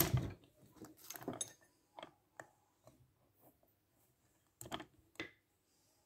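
Scattered light clicks and metal clinks of a starter motor's solenoid being worked loose and lifted off by hand on a workbench. Two louder knocks come near the end.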